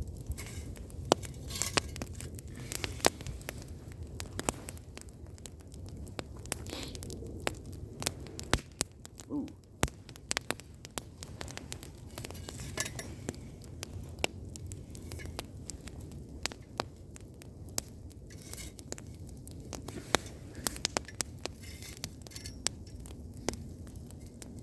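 A burning 8mm camcorder videocassette crackling and popping irregularly as its plastic and tape melt, over a low steady rumble.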